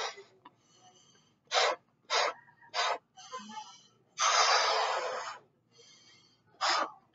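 A person blowing up a latex balloon by mouth: quick, sharp breaths drawn in between blows, three of them in a row and another near the end, and, about halfway through, one long, loud breath pushed into the balloon lasting just over a second.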